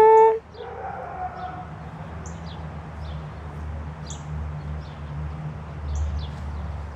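A border collie's high whine, loud, rising and then held for a moment right at the start. After it, faint high bird chirps come every second or so over a low steady rumble.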